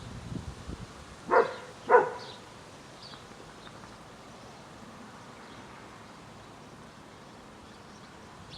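A dog barking twice in quick succession, two short loud barks about half a second apart, with only a faint background afterwards.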